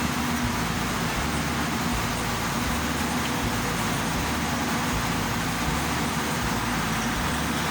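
Excavator's diesel engine running steadily, a continuous mechanical noise with a low hum.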